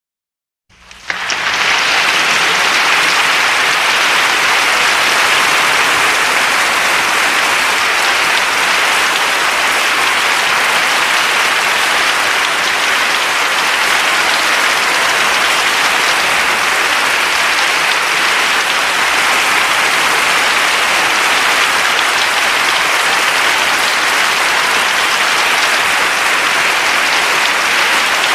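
Crowd applause: many people clapping hands, rising quickly out of silence about a second in and then holding steady and dense.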